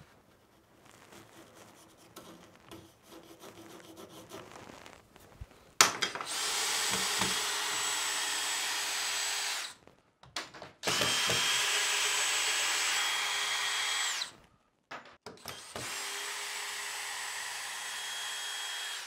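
Cordless drill running in three steady runs of about three to four seconds each, with short pauses between, working into a timber post. A sharp click comes just before the first run, and the first seconds hold only faint handling sounds.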